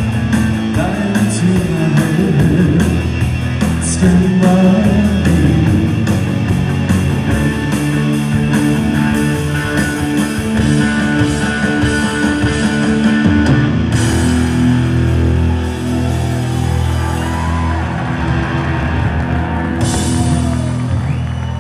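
Live rock band playing electric bass, electric guitar and drums. Busy playing gives way to long held chords, with a cymbal crash near the end.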